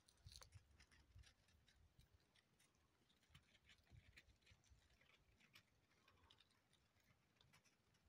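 Near silence, with faint scattered clicks and a weak low rumble.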